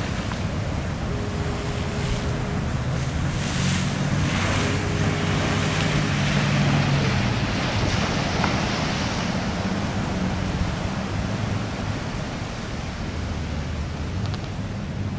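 Heavy surf breaking and rushing, with wind buffeting the microphone and a steady low drone from the 47-foot motor lifeboat's diesel engines underneath; the surf swells louder a few seconds in.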